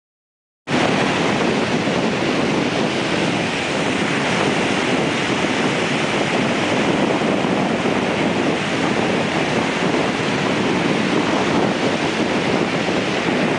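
Surf breaking on the shore, mixed with wind on the microphone: a steady rushing noise that starts abruptly about a second in.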